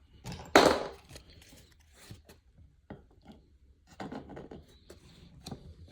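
Baseball trading cards being handled and flipped through in the hands: a sharp rustle of card stock about half a second in, then light slides and clicks as the cards are moved one behind another.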